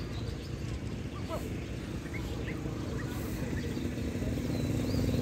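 Outdoor ambience: a low steady rumble that grows louder near the end, with scattered short bird chirps over it.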